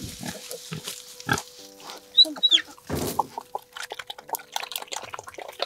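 A sow that has just farrowed eating wet mash from a bowl: irregular smacking, slurping chews with low grunts. A short high chirp comes a little over two seconds in.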